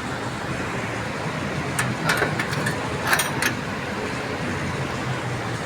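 A short run of sharp clicks in two clusters, about two and three seconds in, over steady background noise.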